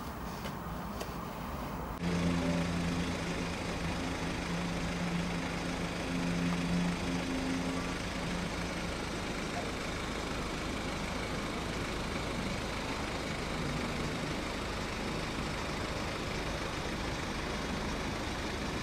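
Steady running noise of a moving vehicle with a low engine hum, starting abruptly about two seconds in.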